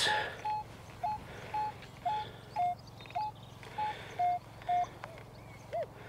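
Minelab Equinox 800 metal detector beeping about twice a second as its coil sweeps back and forth over a buried target, short tones, some a little lower in pitch than the others. The repeated beeps signal a target reading 18 to 19 on the display.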